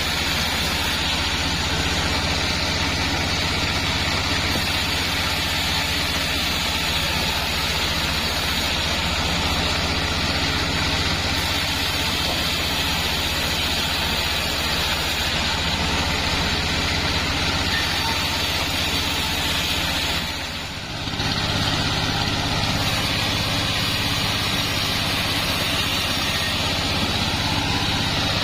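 Sawmill machinery running steadily with a deep engine-like drone and a hiss above it, briefly dipping in level about two-thirds of the way through.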